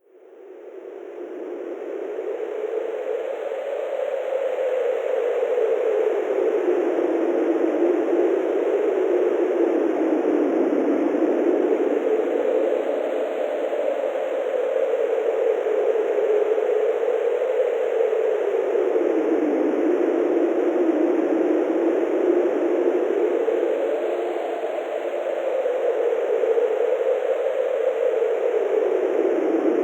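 Wind sound effect: a steady blowing whoosh whose pitch slowly rises and falls in long swells, fading in over the first few seconds.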